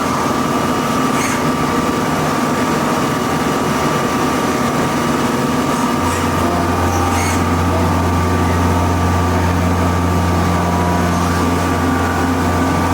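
Lathes running in a metalworking shop: a steady machine hum with a fixed whine. About six seconds in a deeper low hum comes on and holds, as another machine starts.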